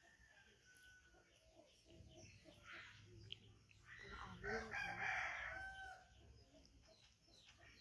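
A rooster crowing once, about four seconds in, the call lasting roughly two seconds; otherwise only faint sounds.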